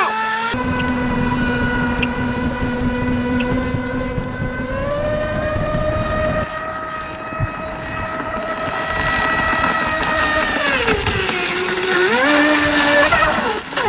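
RC jet ski's brushless electric motor whining at speed under throttle, its pitch stepping up about five seconds in and gliding down near the end. Water rushes against the hull close by through most of it.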